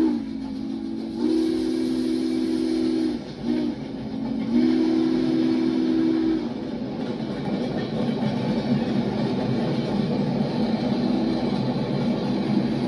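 Southern Pacific Daylight steam locomotive's chime whistle sounding the grade-crossing pattern: the end of one long blast, then a long, a short and a final long blast ending about halfway through. After that, the passenger cars roll past with a steady rumble and wheel clatter on the rail joints. The sound is heard through a TV speaker as picked up by a phone.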